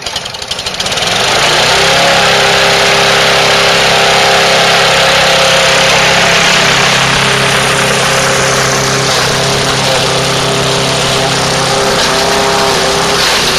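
Gasoline engine of a Craftsman walk-behind mulching lawnmower starting up and coming up to speed within about the first second, then running steadily at high speed. Its governor has been adjusted to let the throttle sit wide open.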